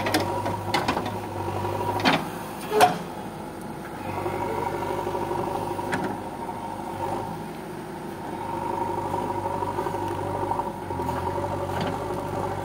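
JCB backhoe loader's diesel engine running as the backhoe digs around a tree stump, its level rising and falling with the work. A few sharp knocks come in the first three seconds, the loudest just under three seconds in.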